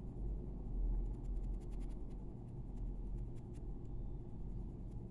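Coloured pencil scratching on paper in many short, quick strokes as fine fur lines are drawn, over a low steady rumble.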